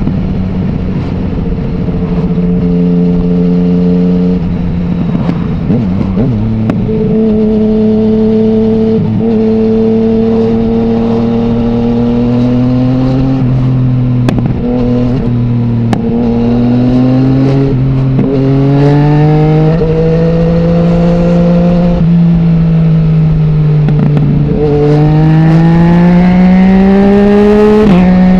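Yamaha MT-09's 847 cc inline-three engine through an Akrapovic full-system exhaust without its dB killer, pulling through the gears on the road: the engine note climbs and falls several times, eases off for a few seconds, then climbs steeply under hard acceleration and drops on a gear change near the end.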